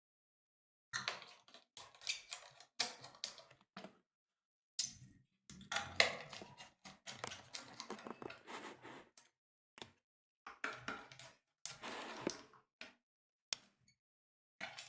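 Small clicks, taps and brief rattling scrapes from working the laptop's heat sink screws with a screwdriver. The sounds come in four short flurries with silent gaps between them.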